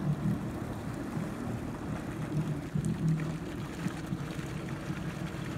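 Jet ski engine running at low speed as it takes up the slack in the tow rope, a steady low hum.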